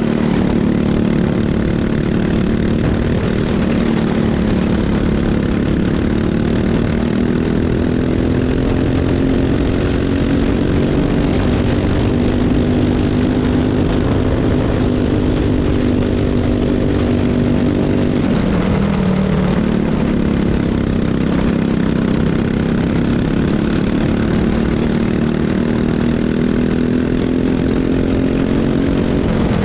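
Racing kart's single-cylinder engine running hard. Its pitch climbs slowly on the straights, drops sharply as the kart slows for a corner about 18 seconds in and again at the very end, then climbs again as it accelerates out.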